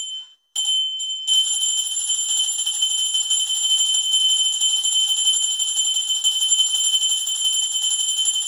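A small puja handbell rung continuously and fast, a high ringing that starts about half a second in and keeps going without a break.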